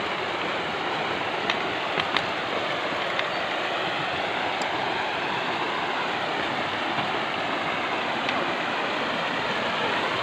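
Shallow river rushing steadily over rocks and small rapids. A few light clicks about two seconds in.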